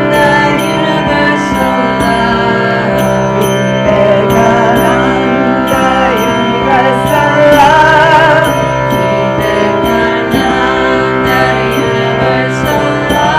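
Hindu devotional kirtan sung by a group, over a sustained drone, with small metal percussion ringing in a steady beat.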